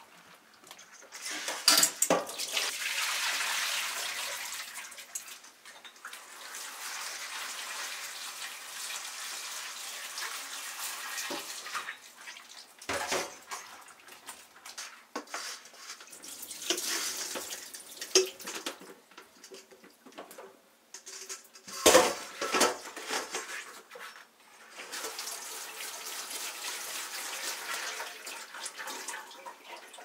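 Water running and splashing in a stainless steel kitchen sink as button mushrooms are rinsed in a steel bowl, broken by a few sharp knocks of the bowl against the sink, the loudest about two-thirds of the way through.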